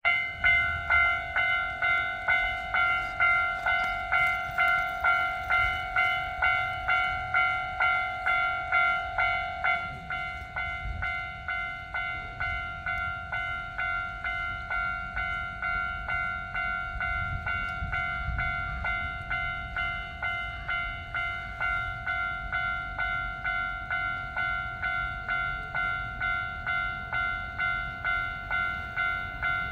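Japanese railway level-crossing warning bell clanging over and over, about three strikes every two seconds, signalling an approaching train. It gets a little quieter about ten seconds in, where its lowest tone fades.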